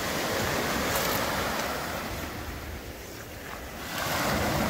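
Waves breaking and washing up a beach, surging twice, with some wind rumble on the microphone.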